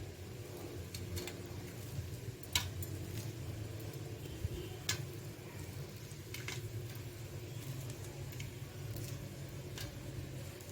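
Fried chana dal vadas being torn apart by hand: soft, quiet crumbling and squishing, with a few sharp clicks, over a low steady hum.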